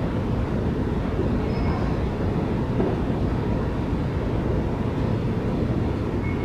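Steady low rumble of an underground metro station concourse, with a faint steady hum and a couple of faint short beeps.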